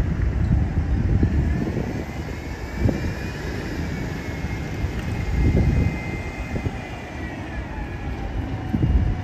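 City bus pulling away and turning through the intersection: its diesel engine runs under load, with a whine that rises and then falls in the middle of the pass, over steady traffic rumble.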